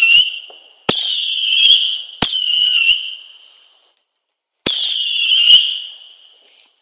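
Whistling fireworks: four shrill whistles in a row, each starting suddenly and holding a wavering high pitch for a second or more before fading out.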